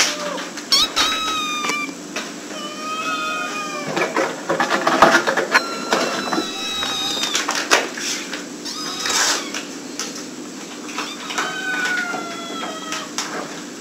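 Kittens mewing over and over in short, high-pitched cries that fall slightly in pitch, with a few scattered knocks.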